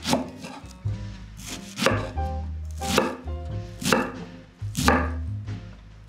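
Kitchen knife chopping enoki mushrooms on a wooden cutting board: about six crisp knife strokes at uneven intervals, the blade going through the stems and tapping the board.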